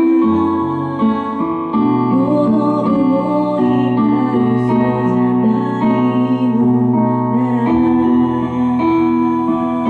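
Woman singing a slow song into a handheld microphone over instrumental backing of sustained chords and bass notes.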